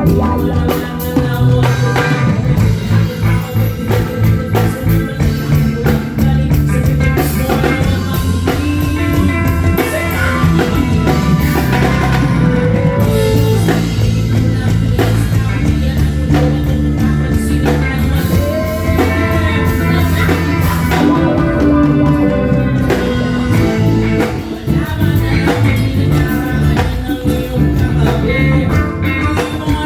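A live rock band playing through a stage sound system: drum kit, bass, electric guitar and a singing voice.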